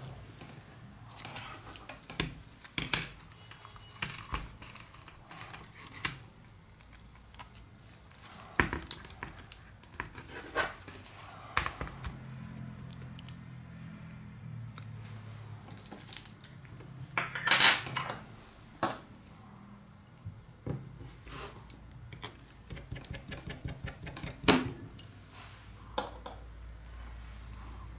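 Irregular small clicks and taps of metal tweezers and fingers on a tablet's plastic frame, circuit board and loose parts, with a louder cluster of clicks about two-thirds of the way through.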